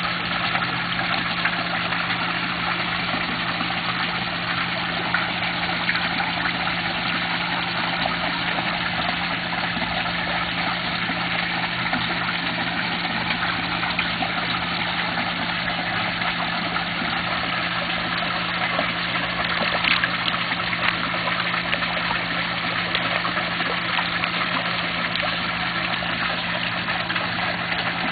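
Steady running water with a constant low mechanical hum, typical of a koi pond's pump and filter return.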